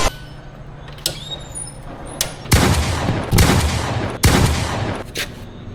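Four loud, sharp bangs in quick succession starting about two seconds in, each with a short ringing tail.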